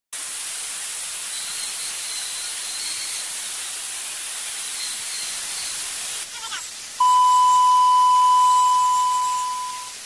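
Steady static hiss, like an old-film crackle effect, for about six seconds. After a brief sweep, a single long, steady electronic beep starts about seven seconds in and fades away near the end.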